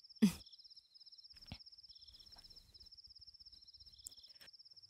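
Crickets trilling steadily in a rapid high pulse, with a faint click about a second and a half in.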